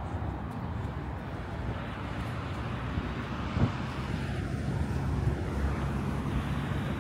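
Outdoor street ambience: a steady low rumble, with one short knock about three and a half seconds in.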